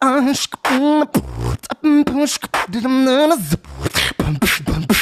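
Live vocal beatboxing into a microphone: rapid mouth-made drum hits (snare and hi-hat sounds) woven with short sung tones that waver in pitch, and a deep kick-like bass hit about a second in.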